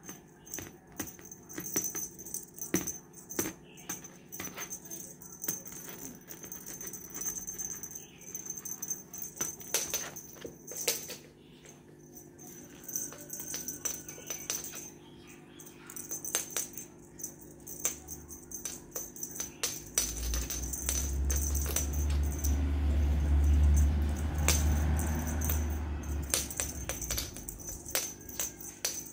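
Feather wand cat toy rattling and jingling as cats bat at it, with irregular sharp clicks and taps. A low rumble swells about twenty seconds in and dies away after about six seconds.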